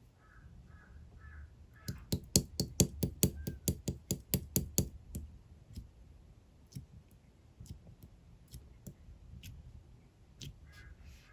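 A fast run of sharp clicks or taps, about six a second for some three seconds, then scattered single clicks, with short high chirps near the start and near the end.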